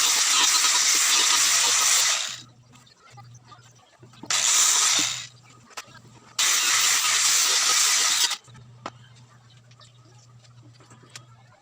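Compressed air hissing in three on-off bursts of spray, the last about two seconds long, with a faint low hum underneath; typical of a spray gun laying paint.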